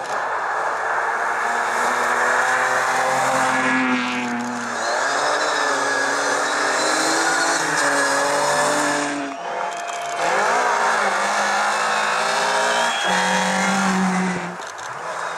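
Rally cars, among them BMW 3 Series, passing one after another at full throttle on a loose gravel stage. The engines rev up and drop back through gear changes over steady tyre and gravel noise, and the sound cuts from one car to the next about every four to five seconds.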